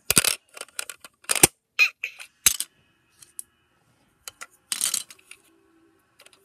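Toys being handled: a run of sharp clicks and clacks, bunched in the first two and a half seconds and again around the fifth second, with a quiet gap between.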